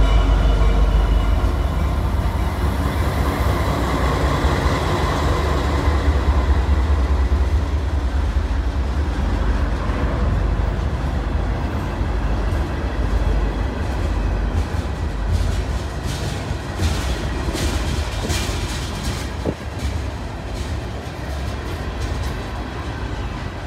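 Freight train rolling slowly past: the low rumble of the CN diesel locomotives eases off as the covered hoppers and tank cars follow. Through the second half come a run of sharp knocks from the cars' wheels and couplings.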